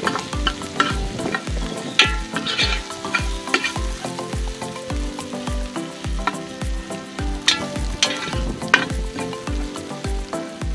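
Metal ladle stirring and scraping against an aluminium pot as whole spices, bay leaves, cashews and mint sizzle in hot oil, with sharper scrapes at a few moments. Background music with a steady beat plays under it.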